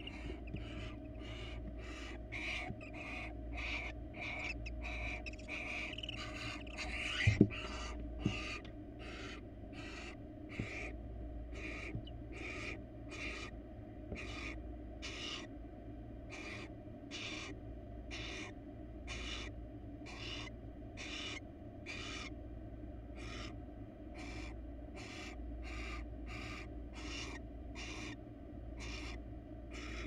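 Barn owl giving its rasping, hiss-like snore call over and over, about three every two seconds, the call barn owls use to beg for food. A sharp knock about seven seconds in is the loudest sound.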